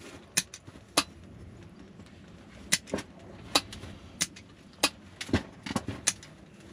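Scissors snipping brome grass, about ten sharp snips at an irregular pace.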